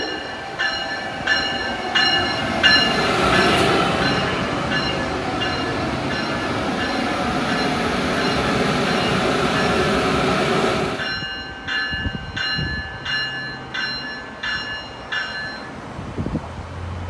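Amtrak Siemens ACS-64 electric locomotive's bell ringing steadily, about three strokes every two seconds, over the loud running and wheel noise of the train passing close by. The running noise cuts off suddenly about eleven seconds in; the bell rings on alone for a few seconds and then stops.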